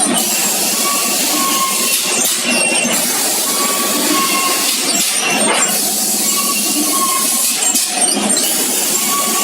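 Cement roof tile making machine running in a steady repeating cycle about every three seconds. Each cycle brings a knock or clink and a pair of short high tones over a continuous mechanical clatter.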